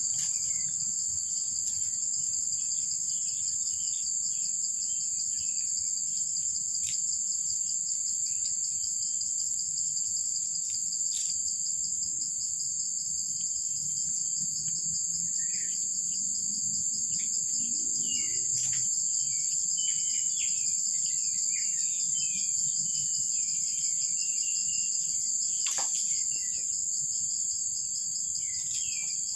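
Steady, high-pitched drone of an insect chorus, with scattered short bird chirps, most of them in the middle.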